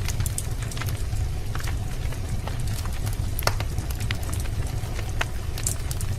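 Wood fire crackling in a fireplace: irregular sharp pops and snaps over a steady low rumble, with one louder pop a little past halfway.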